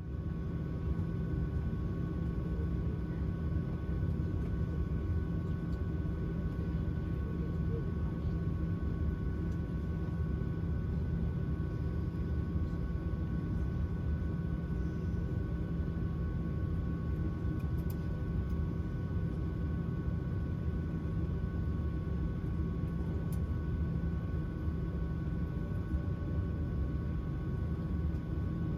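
Boeing 737-700 cabin noise in flight: a steady deep rumble of engines and airflow with a faint steady whine on top.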